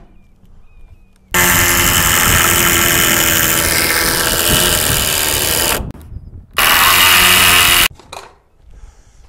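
Handheld power tool running in two bursts, a long one of about four and a half seconds, then a short one of about a second and a half.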